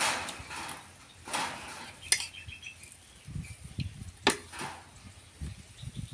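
A metal spoon scraping and clinking on a plate of rice while someone eats, with two sharp clinks, about two seconds in and again about four seconds in.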